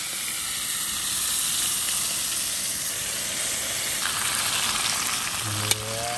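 Chicken pieces sizzling steadily as they fry in hot oil in a black iron kadai over a camping gas stove, turned now and then with a fork. Near the end there is a click and a brief rising tone.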